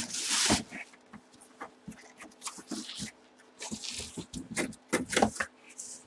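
Plastic wrapping rustling and a cardboard box being handled, as a bagged football helmet goes back into its box. A loud rustle comes at the start, then scattered light taps, scrapes and shorter rustles, the biggest of these about four and five seconds in.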